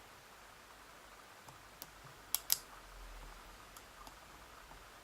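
Faint small metallic clicks of a hook pick lifting pins inside a Schlage Everest pin-tumbler lock held under tension, with two sharper clicks a little past halfway.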